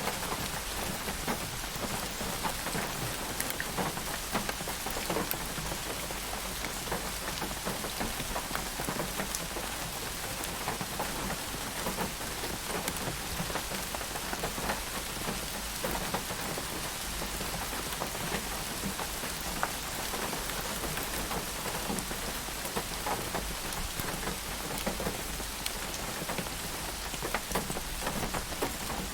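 Steady rain falling on a hard surface: an even hiss of rain with many individual drops ticking through it.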